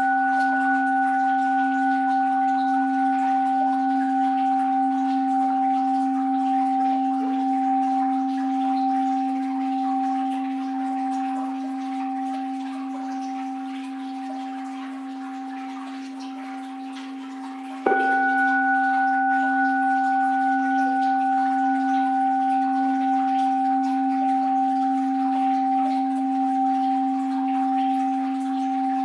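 Orin (Japanese Buddhist bowl bell) ringing, struck once more about two-thirds of the way through. Each strike gives a clear low tone with higher overtones that slowly dies away, over a faint wash of water.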